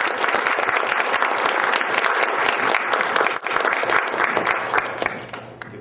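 Audience applauding: many hands clapping densely, thinning and dying away near the end.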